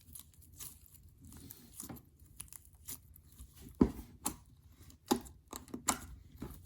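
Hands playing with a store-bought slime, making irregular sticky clicks and crackles, the loudest about four and six seconds in.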